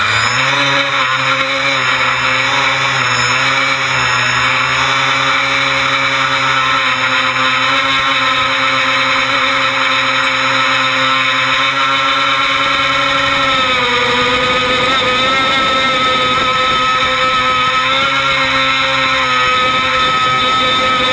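Tricopter's three electric motors and propellers spinning up and running with a steady buzzing whine, dipping in pitch a little past halfway and then holding steady again.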